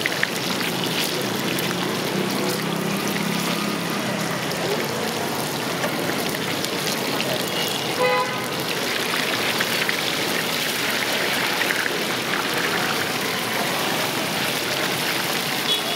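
Batter-coated raw banana bajji deep-frying in a kadai of hot oil, the oil sizzling and bubbling steadily. A brief toot sounds about halfway through.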